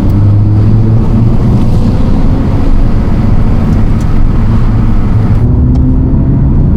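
2022 GR86/BRZ 2.4-litre flat-four running under way through a dual-exit axle-back exhaust with its 5-inch mufflers, a deep steady drone whose pitch climbs slowly. The exhaust tone is more aggressive than stock but fairly quiet. Road and wind noise ease off about five and a half seconds in.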